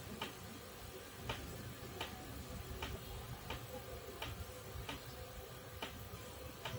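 Faint, regular clicks, about one every 0.7 seconds, as an LG CRT television steps from channel to channel.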